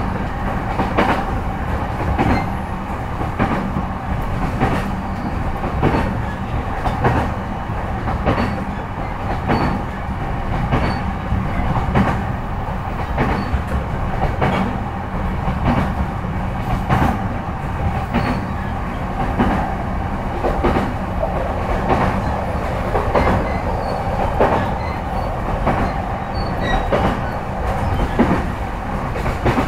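Running sound inside a JR East E233-5000 series electric multiple unit's motor car (MoHa E232) at steady speed. The wheels clack over rail joints about once a second over a steady hum.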